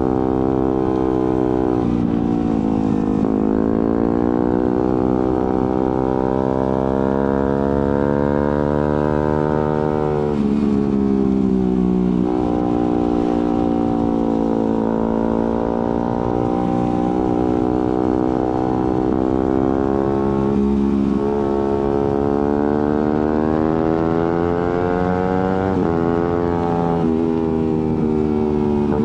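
Suzuki GSX-R150's single-cylinder engine through an aftermarket Prospeed exhaust, riding along with the revs rising and falling. The note jumps sharply in pitch a few times as the quick shifter changes gear without the clutch.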